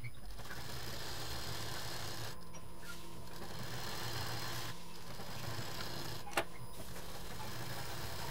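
Domestic sewing machine running steadily as it stitches fabric, with two short pauses while the work is turned and a single sharp click about six seconds in.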